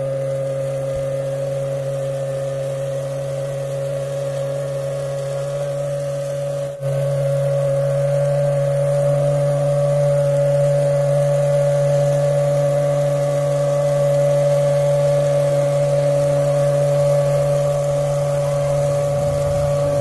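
Small DC motor of a homemade bottle-and-cardboard vacuum cleaner running with a steady whine while it sucks up paper scraps. There is a brief dropout about seven seconds in, after which it runs a little louder.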